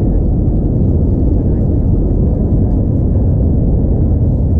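Cabin noise inside an Airbus A321neo rolling on the ground: a loud, steady low rumble from its Pratt & Whitney geared turbofan engines and the wheels on the pavement.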